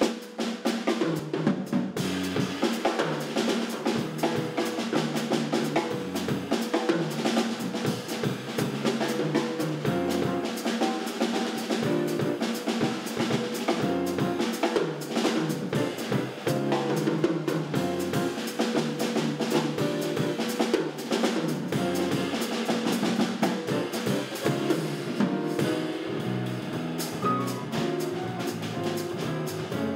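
Live jazz piano trio playing: grand piano, electric bass and drum kit, with the drums prominent and keeping a busy rhythm throughout.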